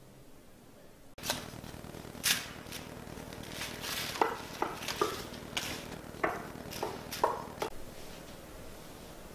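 A utensil knocking and scraping inside a metal canister to loosen damp used coffee grounds, with about ten sharp clinks, several of them ringing briefly, spread irregularly over several seconds, and the soft spill of grounds onto newspaper.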